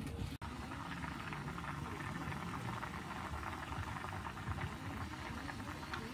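Red broth boiling hard in a frying pan on a portable gas camping stove: a steady, dense bubbling with many small pops.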